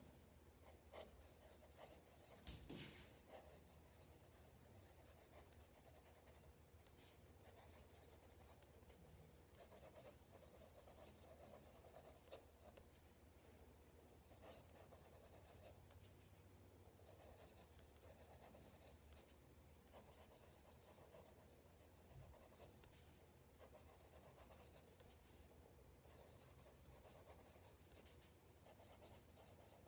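Faint scratching of a Xezo Maestro fountain pen's medium nib writing on paper, in short strokes with brief pauses between words.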